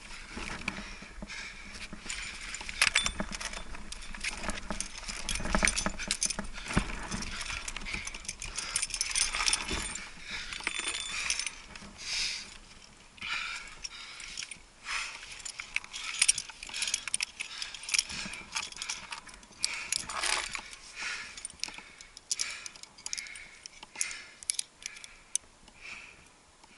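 Climbing hardware, carabiners and cams, clinking and jangling in many short irregular rattles as the protection is cleaned from the crack and racked.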